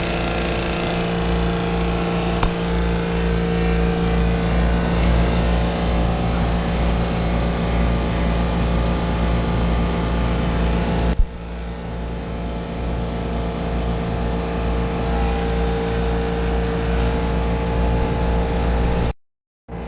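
Walk-in freezer condensing unit running while it is charged with R-404A refrigerant: its compressor and fan make a steady hum at a constant pitch. The sound breaks abruptly about eleven seconds in and drops out briefly near the end.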